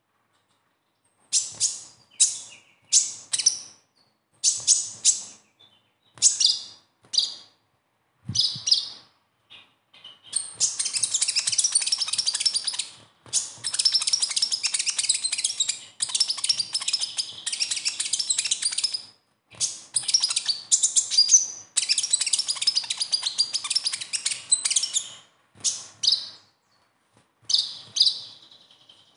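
Sunbird (konin, or kolibri ninja) singing its high, rapid twittering 'besetan' song. It starts in short separate bursts for the first several seconds, then runs on in long, nearly unbroken stretches of chattering with brief breaks. Near the end it returns to short bursts.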